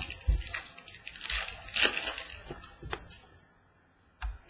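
Crinkling and rustling of a trading-card pack wrapper and cards being handled, in a run of quick bursts, with a light knock near the end.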